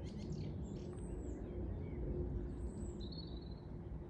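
Small birds chirping and whistling in short calls over a steady low outdoor rumble.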